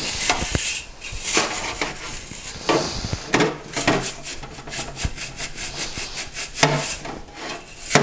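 Bristle cylinder brushes scrubbing the wet cast-iron bore and ports of a freshly bored two-stroke cylinder in soapy water: quick rasping strokes, several a second, that come thicker from about three seconds in.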